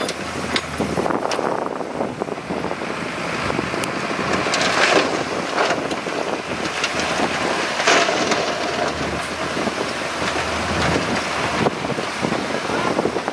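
Komatsu D31P bulldozer running under load as it pushes rock and soil, with the crunch and scrape of rock under the blade and tracks; louder scrapes about five and eight seconds in. Wind buffets the microphone.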